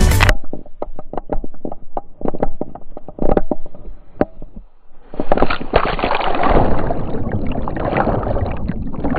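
Water slapping and sloshing against the waterproof housing of an action camera strapped to a swimming dog's head, in quick irregular splashes. About five seconds in, a loud rush of churning, bubbling water as the camera dips under the surface.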